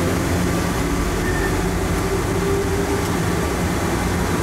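Hartsfield-Jackson Plane Train, a rubber-tyred automated people mover, running at speed through its tunnel, heard from inside the car: a steady rumble with a steady low hum.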